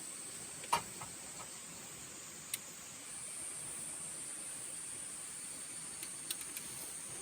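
Steady high-pitched insect chorus, growing a little louder about three seconds in, with a few faint sharp clicks scattered through it.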